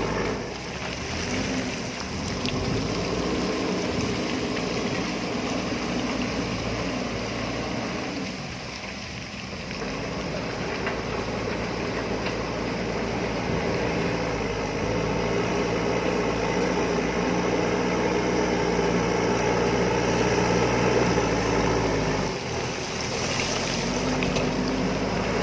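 JCB backhoe loader's diesel engine running steadily as the machine works, its note easing off briefly twice.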